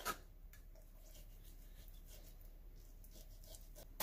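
Faint scratching of a chef's knife drawn through raw pork loin and touching the wooden cutting board as the loin is cut into slices, in short light strokes.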